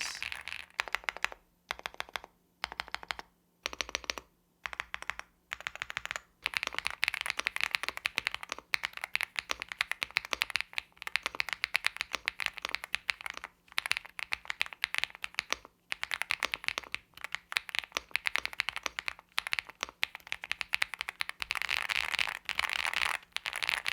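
Typing on a Feker Galaxy 80 Pro gasket-mounted TKL mechanical keyboard with marble linear switches and PBT double-shot keycaps. Short runs of keystrokes with gaps for the first few seconds, then fast, near-continuous typing.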